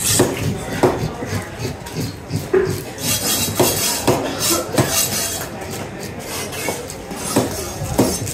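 Large knife chopping through fish and striking a wooden cutting table: irregular sharp knocks, roughly one a second, over market chatter.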